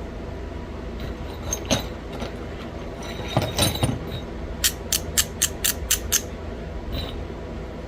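Stone pieces clicking and clinking as they are handled: a few scattered knocks, then a quick run of seven sharp clicks, about four a second, about halfway through.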